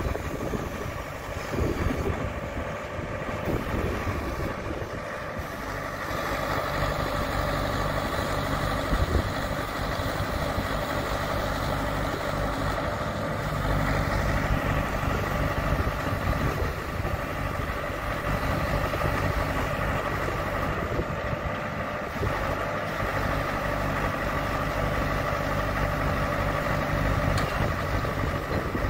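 Diesel engine of a John Deere 6600 self-propelled sprayer running steadily with a steady higher hum over it, while its hydraulics work the spray boom out and up; the sound steps a little louder about six seconds in and again about halfway through.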